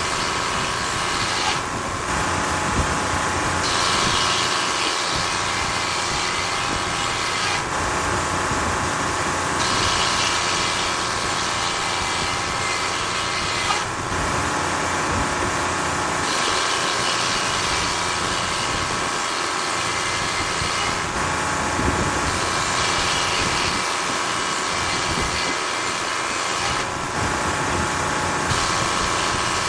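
Sawmill running and sawing a log into boards, its engine running steadily under the cut. The pitch shifts and a higher hiss drops out briefly about every six seconds.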